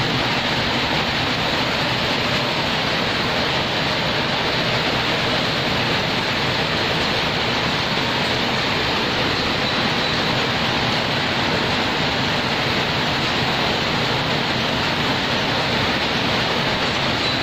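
Many power looms running at once in a weaving shed, their clatter merging into a loud, steady din.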